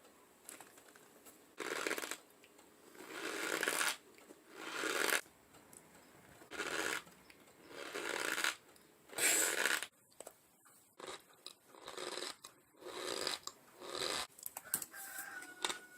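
Cornstarch being chewed close to the microphone: a run of squeaky crunches, each about a second long and coming roughly every second and a half, turning shorter and choppier in the second half.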